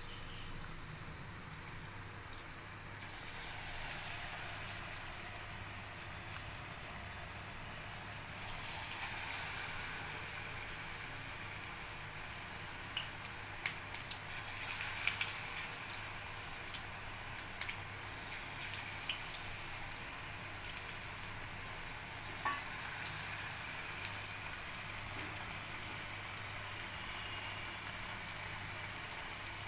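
Batter-coated green beans deep-frying in hot oil in a steel kadai: a steady sizzle with scattered crackles and pops, growing a little louder a few seconds in and again about nine seconds in.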